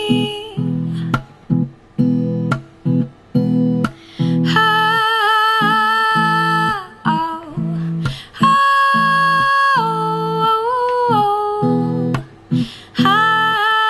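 A woman singing long held notes over a strummed acoustic guitar. The notes step down in pitch at their ends, and the strumming comes in short choppy bursts with quick breaks between them.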